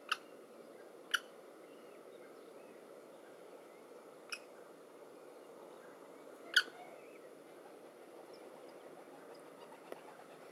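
Four short, sharp calls from common kestrels at the nest, spaced a second to a few seconds apart, the loudest a little past halfway, over a steady low hiss.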